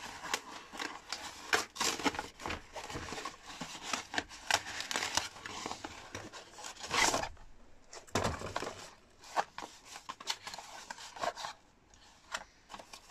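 Cardboard postal box being torn open by hand: ripping and scraping of cardboard flaps. Quieter after about eight seconds, with light crinkling as the wrapped contents are handled.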